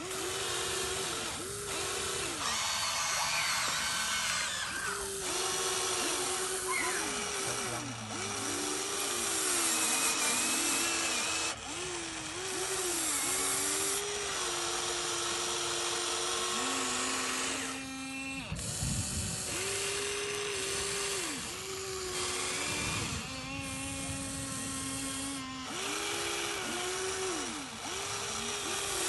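Radio-controlled model excavator's electric motors whining as it digs. The pitch rises and falls in repeated humps, with a few held stretches at a lower pitch.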